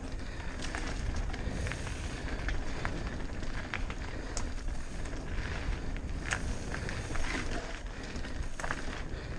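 Mountain bike riding fast over a dirt singletrack trail: tyres rolling on dirt under a constant low rumble, with many short sharp clicks and rattles from the bike over the bumps.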